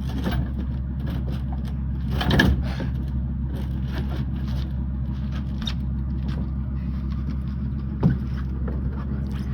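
A vehicle engine idling with a steady low hum, under scraping and bumping. There is a louder scrape about two and a half seconds in and a sharp knock about eight seconds in.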